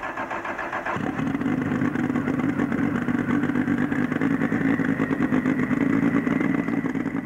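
Ford race engine of the Cheek C288 prototype sports car running at a fast, steady idle on its very first start-up. It grows louder about a second in, then holds an even, unsilenced note.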